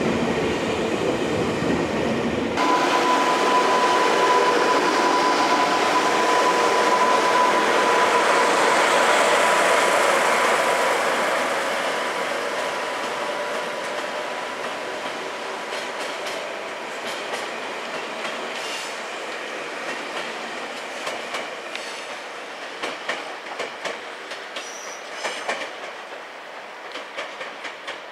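Ex-JR Central 371 series cars being hauled unpowered on a kōshu delivery, rolling past: a steady rumble of wheels on rail with a high steady whine for several seconds. The sound then fades as the train moves away, with rail-joint clicks toward the end.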